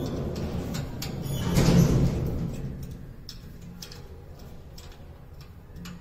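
Rubbing and scraping from a wall-mounted vending machine cabinet being worked into place against the wall, loudest about two seconds in. After it come a few light clicks and ticks as it is fixed with screws.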